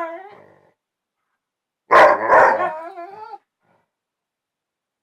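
A dog's 'talking' vocalization: the tail of one call fades out at the start, then about two seconds in a loud bark-like call breaks out and trails off into a wavering, whining howl for about a second and a half before stopping.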